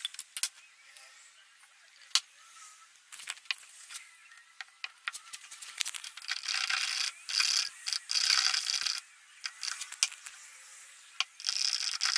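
A paint tin being handled and opened, with a few sharp clicks and knocks, then a stick scraping and stirring thick paint in a plastic pot. The scraping comes in two spells, one about halfway through and one near the end.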